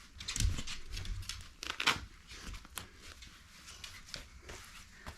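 Rustling fabric and a few short ripping sounds as a dog's snow coat is handled and fastened on the dog, the loudest rip about two seconds in, then quieter rustling.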